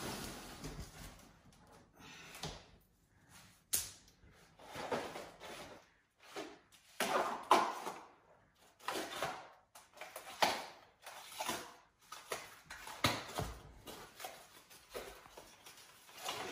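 Cardboard packaging of a flat-packed office chair being handled while unpacking: irregular rustling and scraping of small cardboard boxes, with a few sharp knocks.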